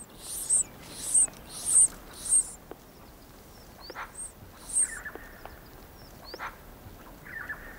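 Horned lark nestlings begging with high, thin squeaks: a quick series of about four in the first couple of seconds, then two more. A few short chirping calls follow later.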